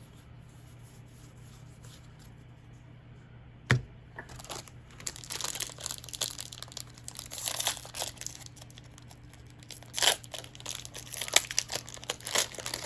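A foil booster-pack wrapper being crinkled and torn open, irregular rustling with several sharper rips in the second half. A single knock comes about four seconds in, before the crinkling starts.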